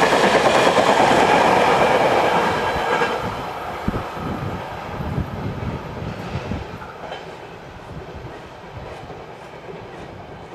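Container freight train passing at speed: the rumble and clatter of its wagon wheels on the rails is loud for about the first three seconds, then fades as the last wagons pass and the train draws away, with a few wheel clacks over rail joints as it goes.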